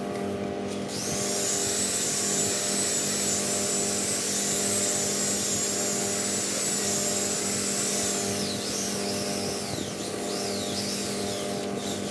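High-speed power tool whining. It spins up about a second in and holds a steady high pitch, then from about two-thirds of the way through its pitch dips and recovers several times, as it does when the tool is pressed into the work and eased off. A steady low hum runs underneath.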